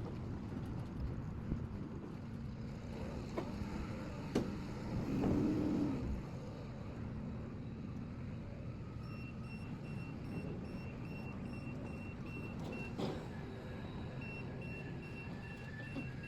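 A motor vehicle running with a steady low rumble. About halfway through, a repeating high electronic beep starts, around three beeps a second.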